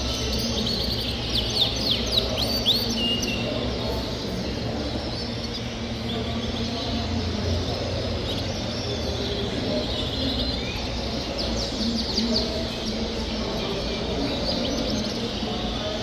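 Caged Yorkshire canaries chirping and singing in bouts of quick, high sweeping notes over steady low background noise.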